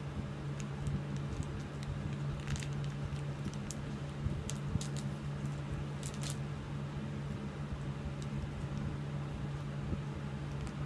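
Fingers picking at and peeling a small wrapper off a sticky piece of chocolate-covered bacon: scattered soft crinkles, clicks and squishes over a steady low hum.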